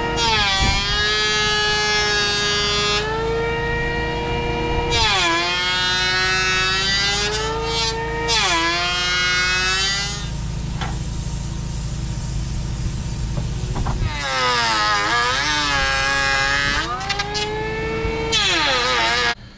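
Electric power planer running along the edge of a door, easing it. The motor's pitch sags each time the blades bite into the wood and climbs again as they free up, and the planer stops abruptly near the end.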